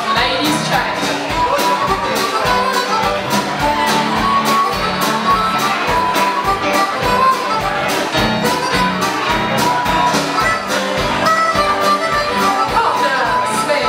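Live folk dance band playing a contra dance tune, with a steady, evenly spaced beat.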